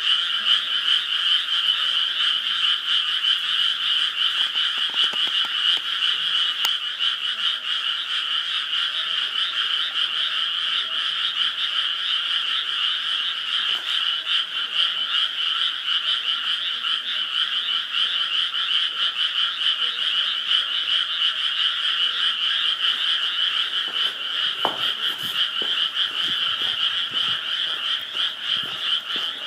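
Dense chorus of many rice-paddy frogs croaking at once, a steady unbroken mass of overlapping calls.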